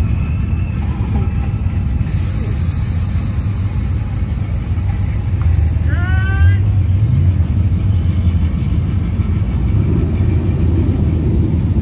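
Car engines rumbling steadily, a little louder in the second half, with one short high-pitched sound about halfway through.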